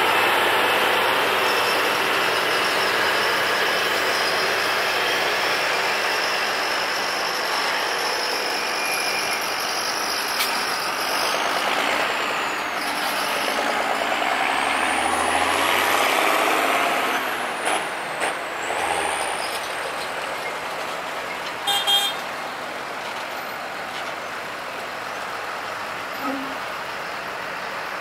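Farm tractor engines and harvest traffic passing: a tractor hauling a grain trailer runs past and its noise slowly fades. A high whine rises and falls about halfway through, and a short sharp sound comes near the end as a second tractor, towing a combine header, approaches.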